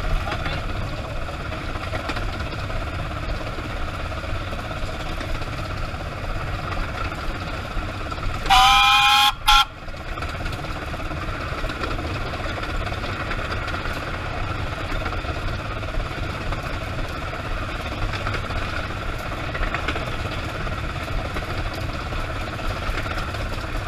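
Steam whistle of Green Goddess, a 15-inch gauge Pacific steam locomotive, blown from the cab: one blast of about a second and then a short toot, about a third of the way in. Under it runs the steady noise of the locomotive on the move.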